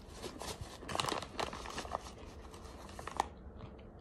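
Clear plastic bag of powdery white starch being squeezed and turned in the hand, crinkling and crackling in quick irregular ticks, busiest about a second in, with one sharper crackle about three seconds in.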